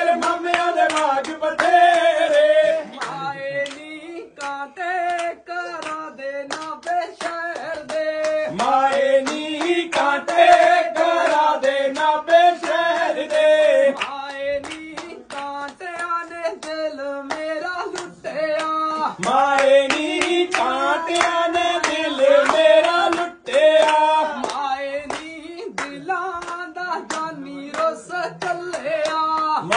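Punjabi boliyan, folk couplets, sung by voices in a small group, with steady hand clapping keeping the beat.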